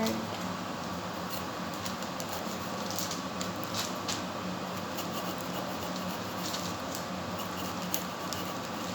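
Steady background hum with a few soft, scattered clicks and taps from hands and utensils working at the prep surface.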